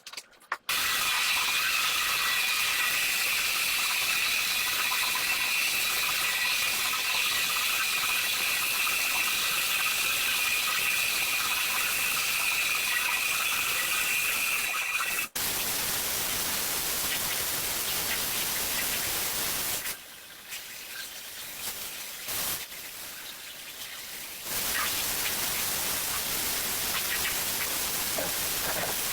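Steady hiss of rug-cleaning spray equipment working on a shag rug, with a high motor whine over the first half that breaks off sharply about fifteen seconds in. The hiss drops away between about twenty and twenty-four seconds, then comes back.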